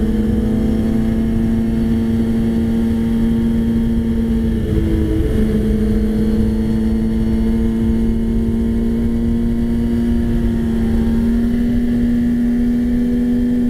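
Sportbike engine running at steady high revs while riding at speed, heard from on the bike with wind rumbling on the microphone. The note wavers briefly about five seconds in and edges higher near the end.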